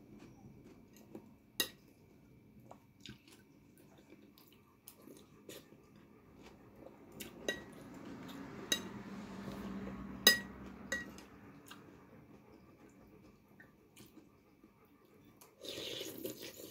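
Cutlery and dishes clinking now and then, a few sharp clinks, the loudest about ten seconds in, with a low hum and rustling for a few seconds in the middle.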